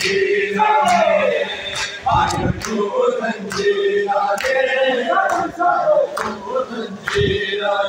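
A crowd of men chanting a noha, a Shia lament, in chorus. Through it runs a steady beat of sharp strikes, a little under two a second, typical of hands striking chests in matam.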